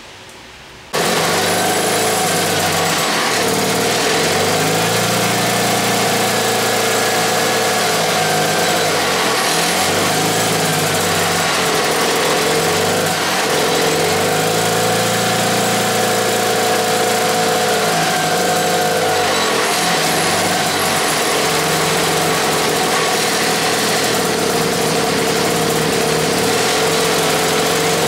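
Antique two-stroke engine running on a modern carburetor, its speed dipping briefly and picking up again several times.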